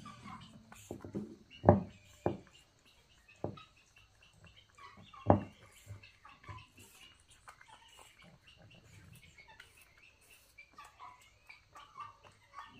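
Young monkeys moving about a bowl on a wooden floor: a few sharp knocks, the loudest about two and five seconds in, with faint short high-pitched chirping squeaks scattered between.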